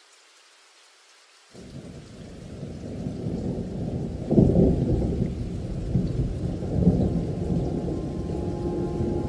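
Thunder rumbling in a rainstorm: after a faint hiss, a low rumble sets in suddenly about a second and a half in, builds, and swells twice.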